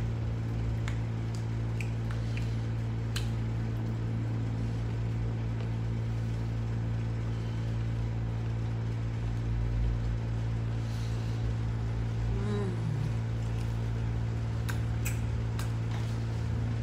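A steady low mechanical hum, such as a room air-conditioning unit or fan, runs without change. Over it are a few faint clicks and chewing sounds of someone eating with a wooden utensil from a plastic tub.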